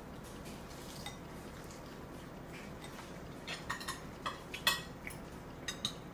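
A small plastic spoon clicking against a porcelain bowl as a toddler feeds herself: a scatter of short, sharp clicks in the second half, the loudest about three-quarters of the way through.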